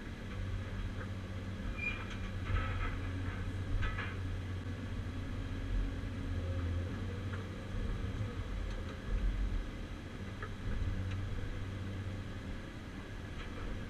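Caterpillar 345C UHD long-front excavator's diesel engine and hydraulics running steadily, heard from inside the cab, with a few short clanks about two and four seconds in.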